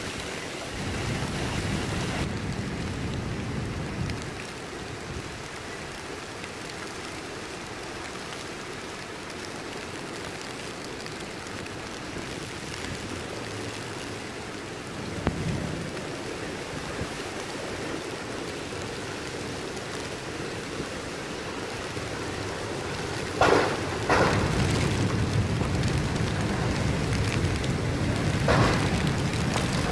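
Typhoon wind and heavy rain: a steady rush of wind-driven rain on the street. Louder, harsher gusts burst in a few times in the last quarter.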